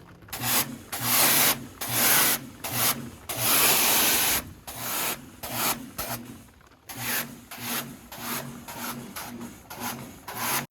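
Repeated rubbing or scrubbing strokes on a surface, about one to two a second and uneven in length, with short pauses between them.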